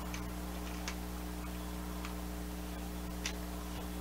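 A few faint, sharp plastic clicks at irregular spacing as LEGO bricks are handled and moved on the assembled tank model, over a steady low hum.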